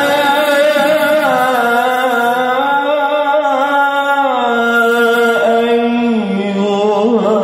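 A male qari reciting the Qur'an in a melodic, drawn-out style: one long held phrase that ornaments and then steps down in pitch about halfway through and again near the end. The voice comes through a PA loudspeaker.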